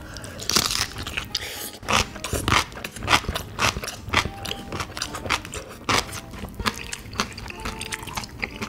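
A person bites into a whole stuffed cucumber kimchi (oi-sobagi) with a loud crunch just under a second in. It is followed by crisp crunchy chewing, about two crunches a second, close to the microphone.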